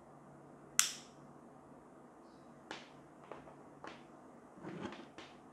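A sharp click about a second in from the inline switch on an LED tube light's power cord, switching the light on. A few fainter clicks and a short rustle of the cord being handled follow.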